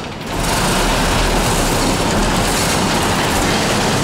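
Steel roll-up shop door being pushed open by hand, its slats rattling loudly and steadily as it rolls up, starting about half a second in.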